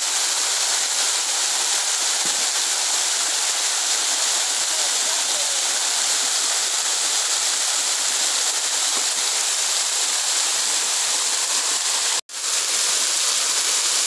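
Small waterfall pouring down a rock face into a rocky pool: a loud, steady rush of falling and splashing water, briefly cut off about twelve seconds in.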